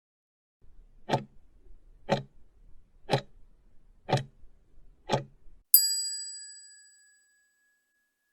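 Countdown timer sound effect: five clock ticks about a second apart, then a bright bell ding that rings out and fades over about a second and a half, marking time up.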